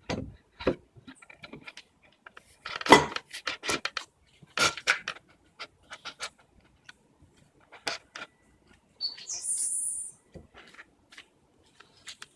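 Scattered wooden knocks and clunks from handling a wooden bench vise and a board, with the loudest knock about 3 s in and a short run of knocks near 5 s. A brief high-pitched squeak comes near the end.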